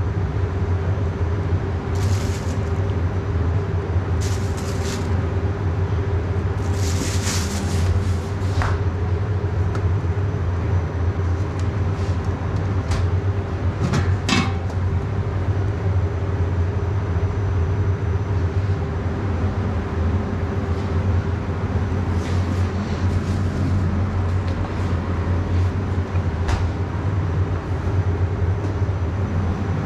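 Steady low hum of kitchen equipment running, with scattered clicks and a few short scraping or hissing sounds of food being handled, and one sharper clink about fourteen seconds in.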